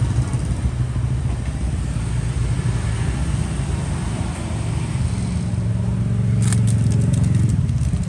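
Steady low rumble of street traffic with motorbikes, swelling as a vehicle passes about five to seven seconds in. A few sharp light clicks come about six and a half seconds in.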